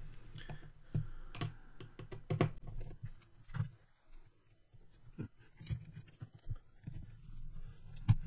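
Irregular clicks and light knocks of the hard plastic Tamiya M07 Concept chassis and its fitted electrics being handled and pressed together by hand, with one sharper knock near the end.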